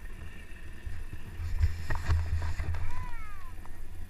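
Dog sled running along a packed snow trail: a steady rushing rumble from the runners and wind on the microphone, with scattered knocks from the sled. About three seconds in there is a short high call that falls in pitch.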